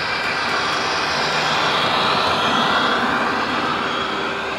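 HO-scale model Amtrak diesel and passenger cars rolling past close by, a steady rush of motor and wheels on the track that swells as the train passes about halfway through.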